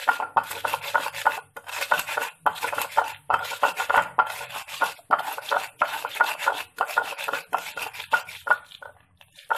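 Stone pestle (ulekan) scraping and grinding on a flat stone mortar (cobek), crushing fresh red chilies, shallots and garlic into a wet spice paste. Rough, gritty rubbing strokes come in quick runs, with short pauses about once a second, and stop shortly before the end.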